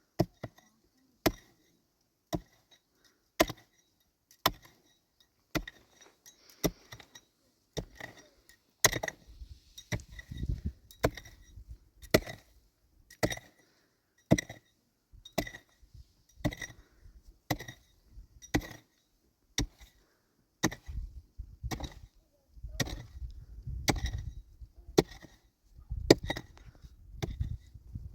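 Steady chopping strokes with a hand tool, about one a second, each hit with a short ring. A low rumble comes in partway through and grows stronger near the end.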